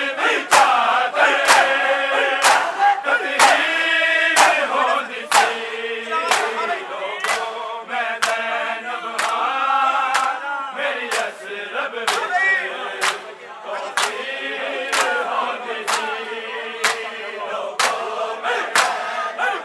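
A crowd of men chanting a mourning lament in unison while beating their bare chests with open hands (matam). The sharp slaps land together about once a second, in time with the chant.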